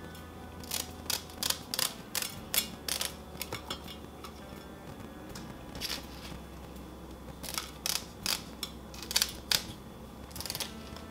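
Kitchen scissors snipping ribbon fish (hairtail): a series of short, crisp snips in quick runs with pauses between them.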